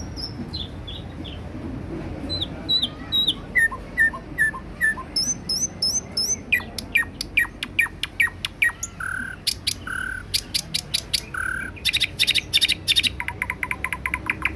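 Nightingale singing a run of varied phrases, each one note repeated several times. Slurred whistles come first, then fast sweeping notes, a few short buzzy notes, and near the end a rapid trill.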